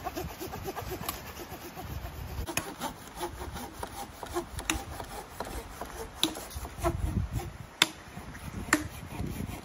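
Handsaw cutting into a tree trunk in quick, even strokes, about four or five a second. From about two and a half seconds in, the strokes turn slower and uneven, with scattered sharp knocks and cracks from the wood.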